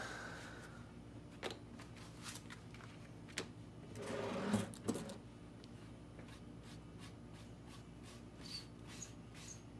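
Handling noise of a metal bait mould and its clamps on a wooden table: a few sharp clicks and knocks, with a longer scraping clatter about four seconds in as the mould is shifted.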